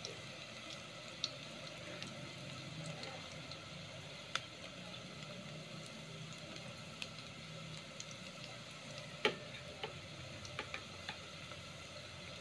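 Ginger and garlic pieces frying in a little oil in a pot: a faint steady sizzle with scattered pops, the loudest about nine seconds in.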